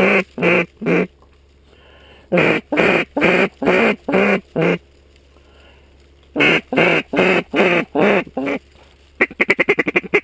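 Mallard duck call blown in loud, evenly spaced runs of quacks, a few at a time with pauses between, then a fast run of short notes near the end like feed chatter, calling to passing mallards.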